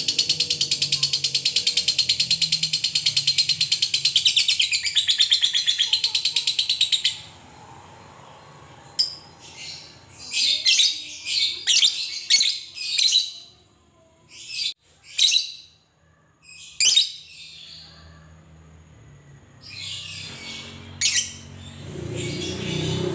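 Fischer's lovebird giving a long, fast, unbroken chattering trill (the 'ngekek' of a fighter bird) for about seven seconds, then breaking off into a series of separate short, sharp chirps.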